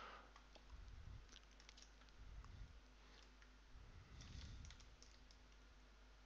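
Near silence, with faint scattered clicks of a computer mouse and keyboard and a few soft low thumps.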